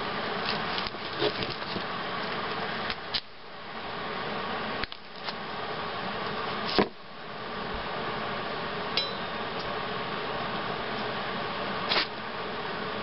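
Hobart Handler 140 MIG welder arc running, a steady hiss broken by several sharp pops and clicks, as a bead is laid joining steel scrap parts.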